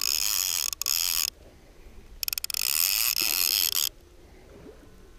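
Click-and-pawl fly reel being cranked to wind in line, buzzing in two spells of a second or two each. The second spell starts as separate clicks and quickly runs together into a continuous ratchet buzz.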